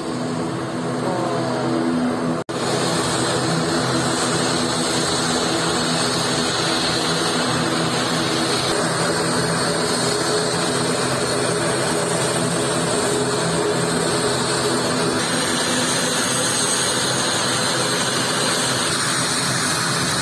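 Twin turboprop engines of an ATR 72-600 airliner running steadily as it taxis, a constant rushing drone with a faint high whine. The sound drops out for an instant about two and a half seconds in.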